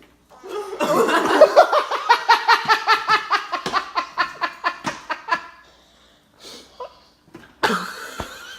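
A person laughing hard: a long run of rapid, pitched laughs, about four or five a second, that fades out after about five seconds. A short loud outburst follows near the end.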